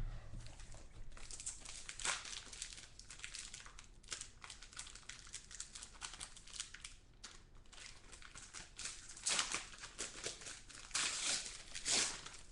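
Crinkling and rustling of a trading card pack wrapper being torn open and handled, with the cards slid and flicked through. Irregular crackles run throughout, with louder bursts about two seconds in, around nine seconds, and again near the end.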